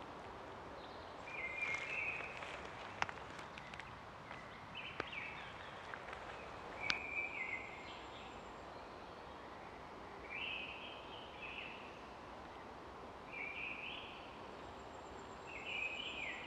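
A songbird singing short phrases about every three seconds over a faint steady background hiss, with a few sharp ticks in the first half.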